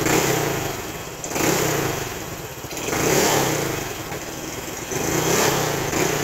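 Honda Click 150 scooter's single-cylinder engine revved through an aftermarket MT8 stainless-tip exhaust: about four throttle blips, each rising and then falling back toward idle.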